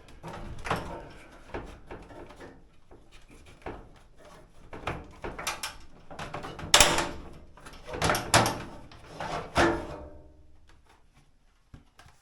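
Plastic and sheet-metal parts of a GE dryer's lint filter assembly knocking, rattling and scraping as the assembly is worked loose and pulled off. An irregular run of clunks, loudest a little past the middle, that dies away over the last two seconds.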